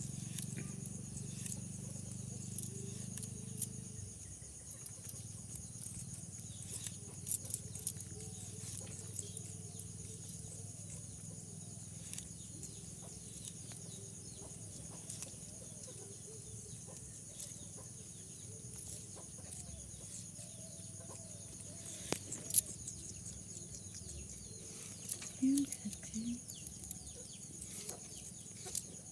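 A parrot eating: sporadic sharp clicks of its beak on the food, with soft short chirps and two brief squeaks near the end, over a steady low hum.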